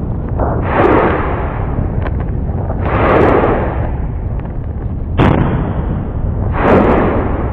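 Explosive ash eruption of Klyuchevskaya Sopka: a deep continuous rumble with four loud blasts, about a second in, around three seconds, just past five seconds and near the end.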